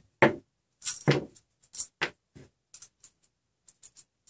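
Small metal parts and tools handled and set down on a tabletop during hand assembly: a series of short knocks and clicks. The two loudest come near the start and about a second in, followed by lighter ticks.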